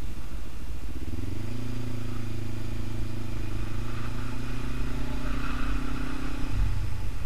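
Motorcycle engine running at low road speed, heard from the rider's seat. Its revs pick up about a second in, hold steady, and fall off near the end.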